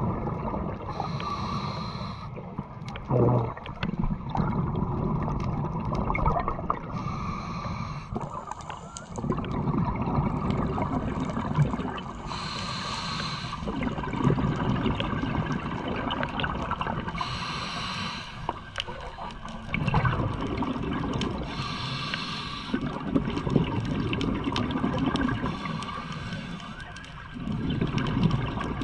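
Scuba regulator breathing underwater: a short hissing inhale about every five seconds, with exhaled bubbles gurgling and rumbling in between.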